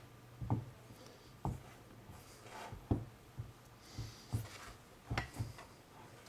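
Fingers pressing and rubbing a protective film onto a controller's display screen: a series of irregular light taps and knocks with short rubbing sounds between them.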